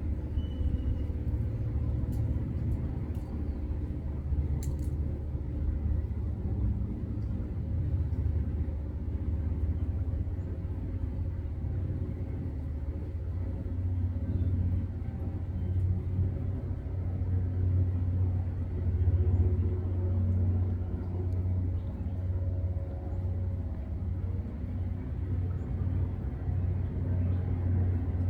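Steady low outdoor rumble, with a few faint ticks a few seconds in.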